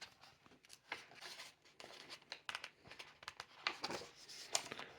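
Faint scratchy rustling: a run of short, uneven scrapes and crinkles.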